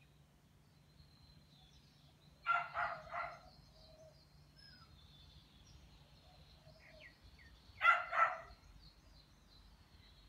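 Short animal calls: a quick group of three about two and a half seconds in and a pair near eight seconds, over faint high bird chirps.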